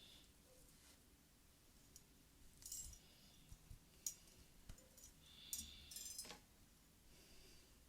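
Faint, sparse clicks and light tapping from small objects handled close to the microphone, with a brief crinkly rustle around five to six seconds in.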